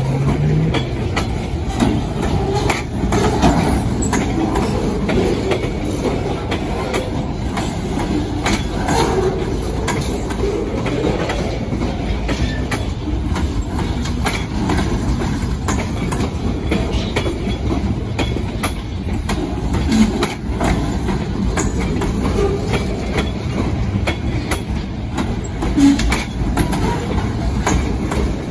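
A freight train of centerbeam flatcars rolling past: a steady rumble of steel wheels on rail, with irregular clicks and clanks as the wheels cross rail joints.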